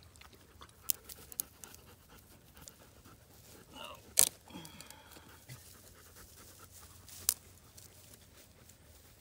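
Dog panting close by, with a few sharp snaps as twigs are handled and broken for kindling; the loudest snap comes about four seconds in.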